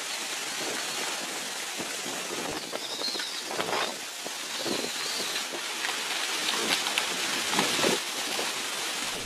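Heavy rain and strong wind: a steady, dense hiss of rain with irregular surges.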